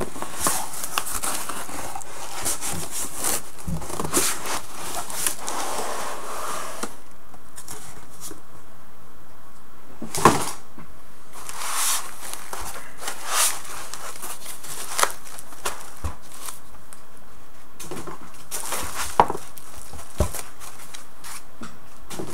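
Foam packing, a plastic bag and a cardboard box being handled as a bench power supply is unpacked. Dense crinkling and rustling for the first several seconds, then scattered single knocks and bumps as the foam end caps come off and the unit is set down.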